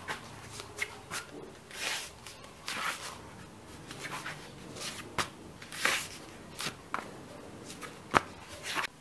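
Rustling and scuffing of a person moving on a foam exercise mat during a workout: irregular soft swishes with a few sharp taps.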